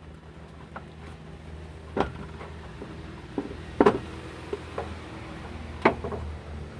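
Scattered clicks and knocks of hands pulling loose a car's rubber air intake hose from the air filter housing, with three sharper knocks about two, four and six seconds in.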